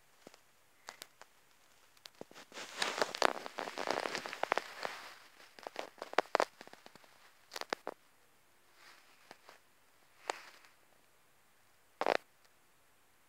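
Close-up rustling and small crackly clicks as a hamster grooms itself on a fabric bed. A dense run of rustling lasts a couple of seconds, then gives way to scattered clicks and short rustles.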